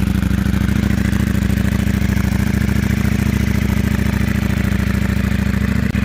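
Ducati Panigale V2's 955 cc V-twin idling steadily at a fast, even beat while it warms up.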